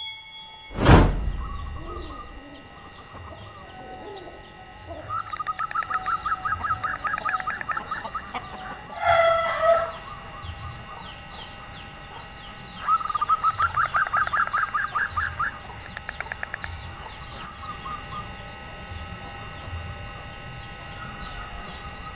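Female zebra dove (perkutut) giving two runs of rapid, evenly repeated calls. A rooster crows once in between, and there is a loud whoosh-like hit about a second in.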